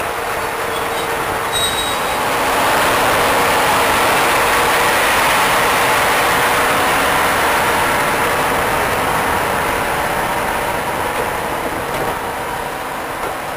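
Class 55 Deltic diesel locomotive 55022, with twin Napier Deltic two-stroke engines, working as it hauls a train of coaches past. It grows louder about two and a half seconds in, then slowly fades as the train draws away, its engine sound mixed with the rumble of the coaches on the rails.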